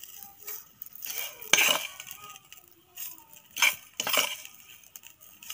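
Metal spoon clinking and scraping against a steel plate and the rim of a steel mixer-grinder jar while dry-roasted prawn chutney mixture is scooped into the jar. The strokes come one by one with short gaps, the loudest about one and a half and three and a half seconds in.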